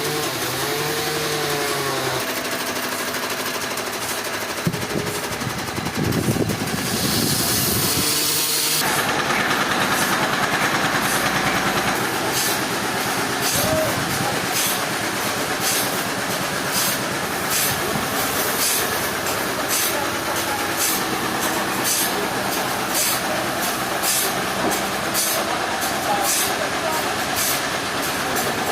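Sawmill machinery engine running and revving up and down. About nine seconds in it gives way to a denser, steady mechanical noise with regular high ticks, roughly one and a half a second.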